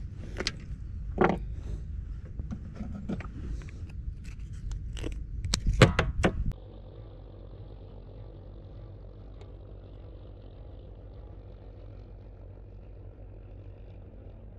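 Handling noises in a small boat: scattered clicks, scrapes and knocks over a low rumble of wind on the microphone, with the loudest clatter about six seconds in. All of it stops abruptly, and a faint steady noise follows.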